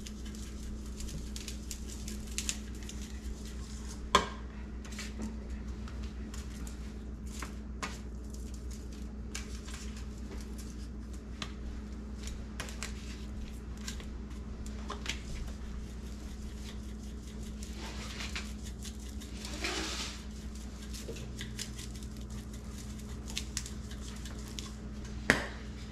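Light kitchen handling sounds: scattered small clicks and taps of a seasoning shaker and paper plate on a granite counter while fish fillets are seasoned, over a steady low hum. A sharper knock comes about four seconds in and again near the end.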